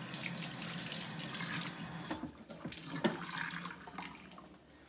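Kitchen faucet running water into the sink, with a short break about two seconds in and a sharp knock about three seconds in; the flow fades out near the end.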